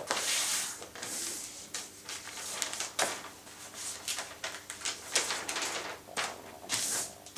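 A large sheet of kraft wrapping paper being folded, creased and opened out by hand: a series of paper rustles and swishes with a few sharp crackles.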